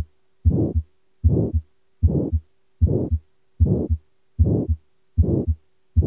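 Stethoscope recording of an aortic stenosis heart: regular beats at about 75 a minute, each a first heart sound followed by a crescendo-decrescendo systolic ejection murmur that rises and then falls in intensity before the second heart sound.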